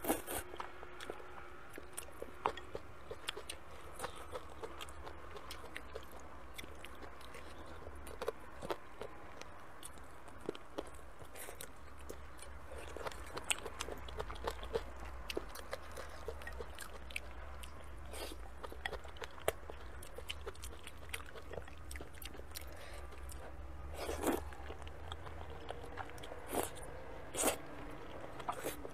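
Close-miked eating of sticky wide potato noodles: chewing and biting with many small wet clicks and crunches, and a couple of louder slurps of noodles near the end.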